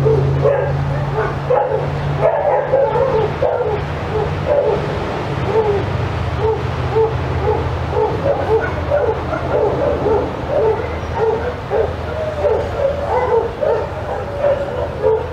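A dog yipping and whining over and over, short high calls coming a few times a second, over a steady low hum.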